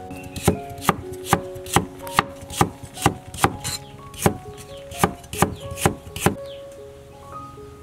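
Kitchen knife slicing carrot on a wooden cutting board: a run of about thirteen sharp chops, roughly two to three a second, with a short pause in the middle, stopping near the end. Soft background music underneath.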